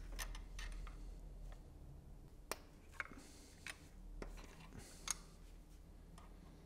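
Faint, scattered metallic clicks and taps of a hand wrench working on the cam sprocket bolts of a BMW M70 V12 as they are loosened, about half a dozen over several seconds, over a low steady hum.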